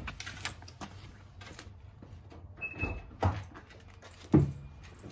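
Footsteps, then the door of a 2016 Mazda 3 being opened and shut: several knocks, the loudest thump about four seconds in, with a short high beep in between.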